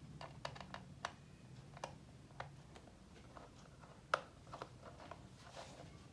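Faint, irregular light clicks and ticks of a small screwdriver working the tiny bottom-case screws of a MacBook Pro, with one sharper click about four seconds in.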